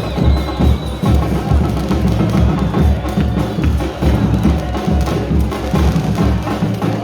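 Fans' drum band playing a steady rhythm: heavy bass-drum beats about two to three a second, with sharper percussion knocks over them.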